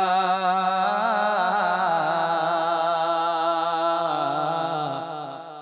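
A boy singing a naat solo into a microphone, with no instruments: one long held, wavering note with a few quick melodic turns, fading away near the end.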